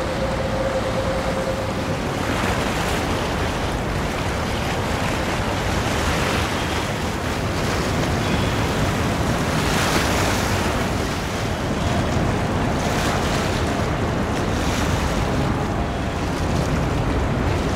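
Wind rumbling on the microphone over harbour water, swelling in gusts several times.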